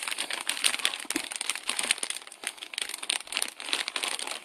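Crinkling and rustling of packaging, a dense run of irregular crackles as the wrapping around a jersey is handled.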